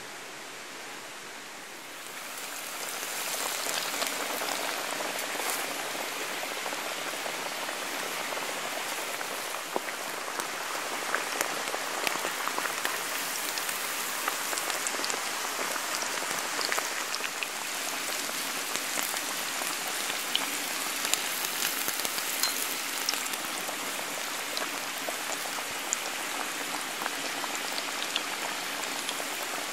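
Panko-breaded beef cutlet frying in hot oil in a cast iron skillet: a dense, steady sizzle with many small sharp pops, starting about two seconds in.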